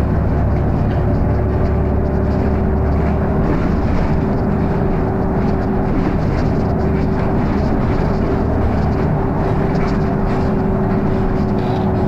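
Volvo B7RLE bus's diesel engine and ZF automatic gearbox running steadily, heard from inside the saloon: a deep drone with a steady whine over it.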